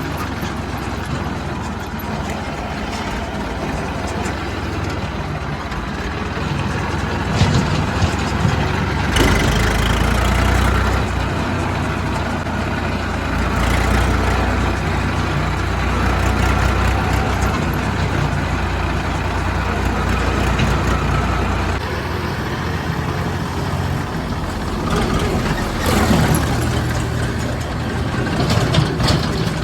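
Heavy diesel engines of earthmoving machinery running steadily, heavier in the low end through the middle stretch, with a few short knocks and clatters.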